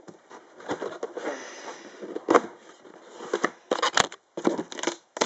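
Cardboard shipping box being worked open by hand: irregular scraping and tearing of the cardboard, with a sharp click about four seconds in.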